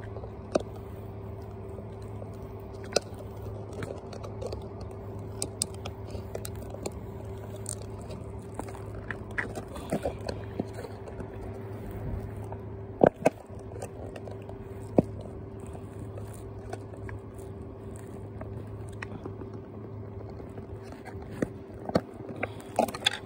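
Pitbull puppy chewing and biting raw chicken hearts: irregular wet clicks and smacks, two of them louder past the middle. A steady low hum runs underneath.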